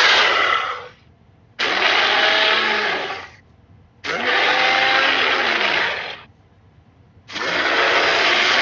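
Allosaurus roar sound effect: harsh, noisy roars about two seconds long, repeated with short quiet gaps. One roar ends in the first second, two full roars follow, and another begins near the end.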